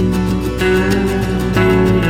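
Background music: strummed guitar with held chords and a steady beat.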